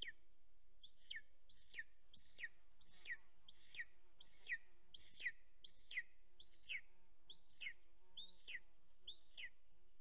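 Golden eagle at the nest calling: a series of about a dozen high whistled calls, each rising briefly and then sliding steeply down, about one every 0.7 s, stopping just before the end.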